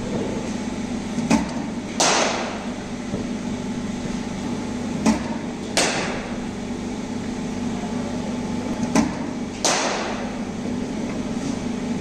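Cricket bat striking the ball three times, about four seconds apart: a sharp wooden crack with a short ring each time, preceded by a smaller click less than a second before. A steady low hum runs underneath.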